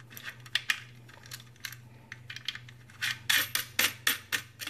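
Light metallic clicks and clinks of a metal wire grommet being fitted and screwed into the electrical bay on a Badger garbage disposal's metal base plate. The clicks are scattered at first, with a quicker run of louder ones about three seconds in.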